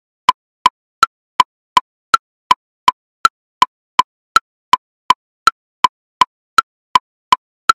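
Metronome at 54 beats per minute subdividing each beat into triplets: a higher woodblock click on each beat followed by two lower clicks, an even run of three clicks per beat.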